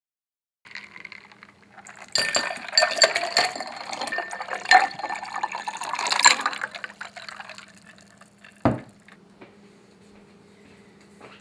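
Water poured over ice into a tall drinking glass, ice cubes clinking and rattling against the glass as it fills. Near the end, a single low thump.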